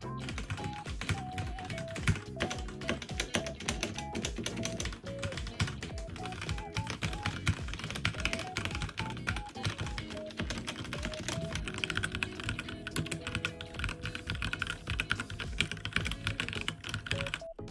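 Continuous fast typing on a HyperX Alloy Origins Core mechanical keyboard with red linear switches: a dense run of keystroke clacks, with background music underneath.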